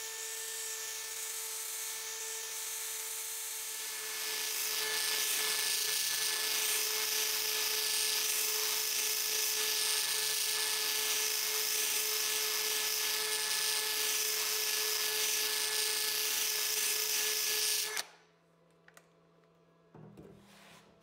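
Electric rotary tool with a polishing wheel running against the steel jaw of an adjustable wrench: a steady motor whine with an abrasive hiss that grows louder about four seconds in. The tool cuts off suddenly near the end.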